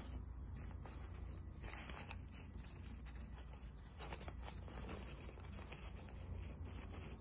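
Faint rustling and crinkling of a 3-ply disposable face mask's nonwoven fabric as its layers are peeled apart by hand, over a low steady hum.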